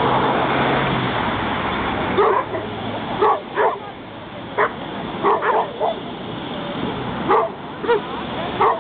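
A dog barking repeatedly: about ten short barks in irregular clusters, starting about two seconds in. They sit over a steady background rumble.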